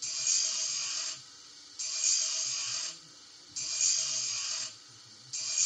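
Sound decoder loudspeaker in a Märklin H0 ROBEL track maintenance vehicle model playing its function F21 environment sound effect: a rhythmic hissing, four bursts of about a second each with short pauses between them.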